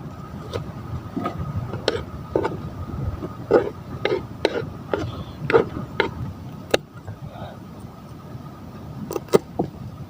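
Knife chopping vegetables on a cutting board: a string of sharp, uneven chops that pause for about two seconds late on, then resume with a few quick cuts. A low wind rumble runs underneath.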